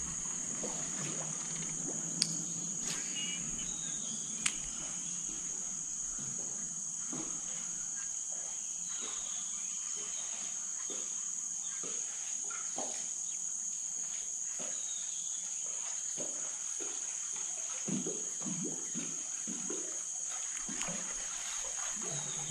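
Steady, high-pitched drone of an insect chorus, with two sharp clicks a couple of seconds apart near the start.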